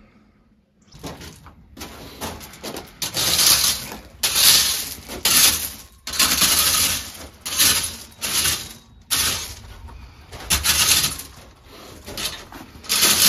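Gravel being spread by hand on a shed floor: repeated rasping, scraping strokes of stones shifting, about one a second.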